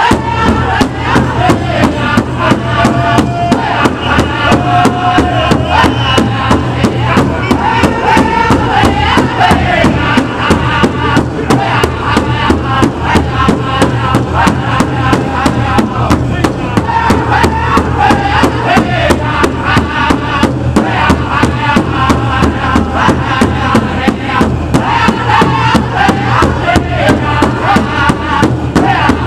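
Powwow drum group singing a chicken dance song, several drummers striking a large powwow drum together in a steady beat. High voices sing in unison over the drum, rising and falling in pitch.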